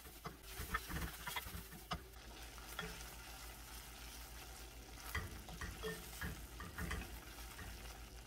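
Ground pork chorizo frying with a faint sizzle in a stainless steel pan, stirred with a wooden spatula that scrapes and taps against the pan in scattered strokes.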